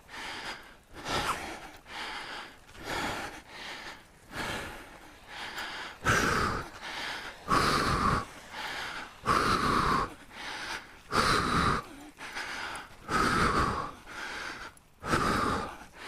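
A man's heavy, gasping breaths in and out, about one a second, the louder ones every two seconds or so: he is winded and short of breath from exertion, which he blames on his smoking.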